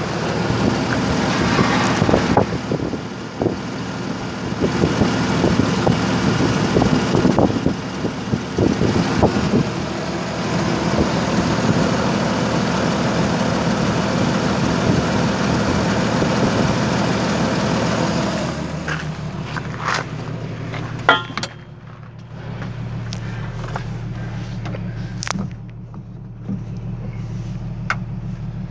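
1997 Jeep Wrangler's 4.0-litre straight-six petrol engine idling at about 1000 rpm. It is heard close over the open engine bay, with a busy ticking in the running. About nineteen seconds in it turns quieter and deeper, heard from inside the cabin, with a few knocks and clicks.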